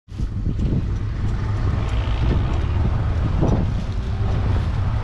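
A 1999 John Deere 4200 compact tractor's 1.2-litre three-cylinder diesel engine running steadily, heard close up from the rear of the tractor.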